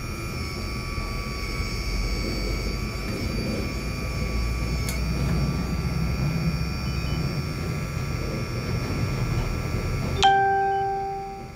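The hydraulic pump of a scale RC excavator in CAT 336D livery runs steadily with a low rumble and a high whine while the boom and arm are moved. About ten seconds in, the pump noise drops away and a single ringing chime-like tone sounds and fades over about a second.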